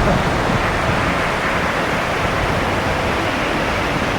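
Steady rushing of a fast mountain river, an even, unbroken roar of water.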